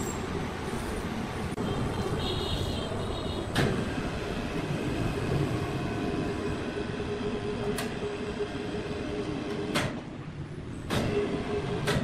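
Sawmill machinery running with a dense, steady rumble and a held hum through the middle, broken by four sharp knocks a couple of seconds apart.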